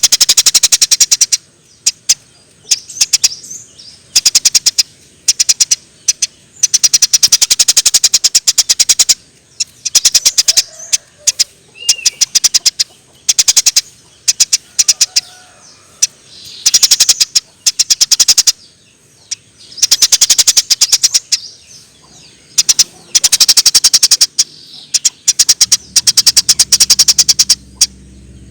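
Eurasian tree sparrows chirping in rapid bursts: each burst a fast run of sharp chirps lasting a second or two, repeated after short pauses. A low hum comes in near the end.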